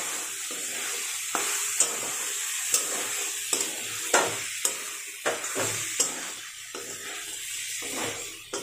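A metal spatula scrapes and knocks against a metal kadhai, stirring brown chickpeas in oil and masala, with irregular strokes about once or twice a second. Under the strokes runs a steady sizzle of the chickpeas frying in the oil.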